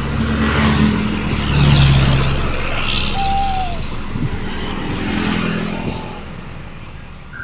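Road traffic: a steady engine hum with vehicles passing, swelling loudest about two seconds in.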